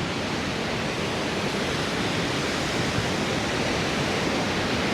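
A large waterfall's falling water: a steady, even rush of noise close by.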